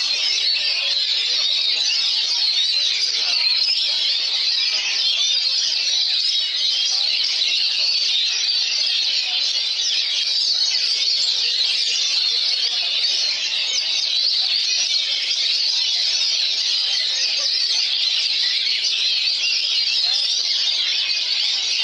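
Many caged oriental magpie-robins (kacer) singing over one another in a dense, unbroken chorus of quick chirps, trills and whistles.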